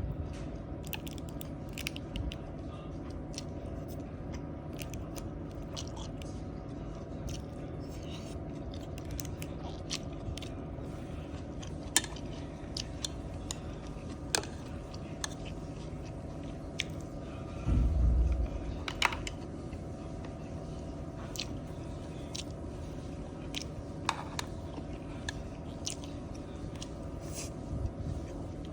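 A person chewing and biting food from a boxed lunch close to the microphone, with occasional crunches and scattered sharp clicks over a steady low hum. A louder low thump comes about two-thirds of the way through.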